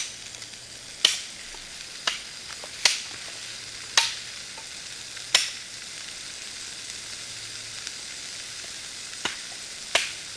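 Shrimp and vegetables sizzling in olive oil in a small pot on a camp stove, a steady hiss. Over it, sharp knocks of the stirring spoon against the pot come about a second apart in the first half, with two more near the end.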